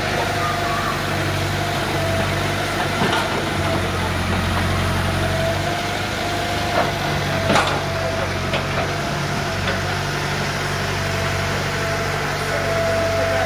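Heavy diesel work machinery idling: a steady low engine drone with a steady whine above it, and a few short knocks, the loudest about seven and a half seconds in.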